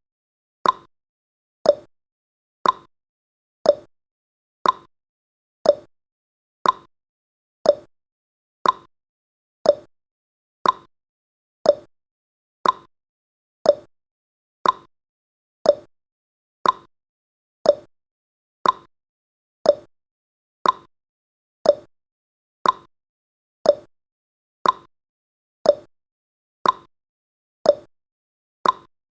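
Clock tick-tock sound effect: one sharp tick each second, alternating between a higher and a lower note, marking off the seconds of a countdown timer.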